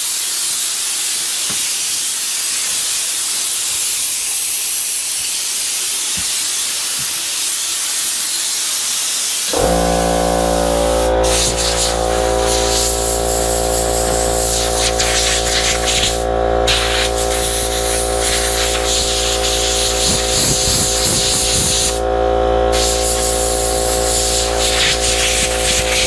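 Compressed air hissing hard from a blow gun off a Kobalt 8-gallon air compressor. About ten seconds in, the compressor's electric motor and pump kick on with a steady hum as the tank pressure drops. The air keeps blowing, with two short breaks.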